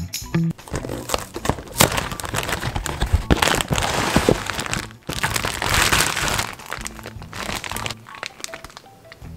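Cardboard box and plastic bag of frozen taquitos being handled, with two long stretches of rustling and crinkling broken briefly about five seconds in.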